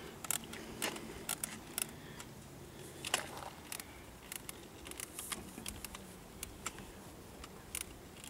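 Scattered light clicks and knocks of hands handling a pair of airsoft rifles and their mount on a homemade twin-gun rig.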